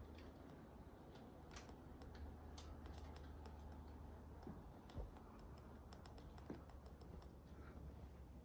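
Near silence with faint, scattered light clicks and ticks, and a soft thump about five seconds in.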